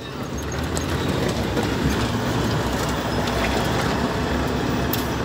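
Heavy truck's diesel engine and road noise heard from inside the cab while driving: a steady low drone under a broad rumble, swelling over the first second and then holding steady.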